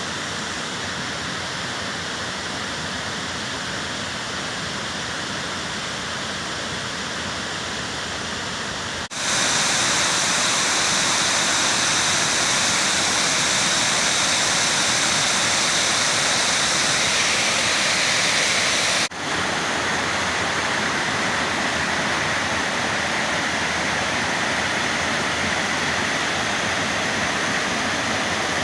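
Waterfall pouring: a steady rushing of water in three stretches that cut off abruptly about nine and nineteen seconds in, the middle stretch louder and brighter.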